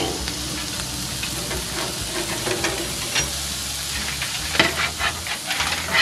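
Burger patties sizzling on a hot grill grate, a steady hiss with scattered crackling pops, the sharpest about four and a half seconds in and near the end.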